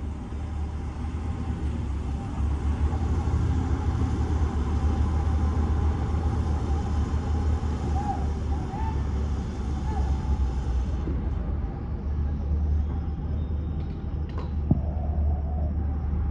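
Outdoor construction-site ambience: a steady low rumble, with faint distant voices and a few sharp taps near the end.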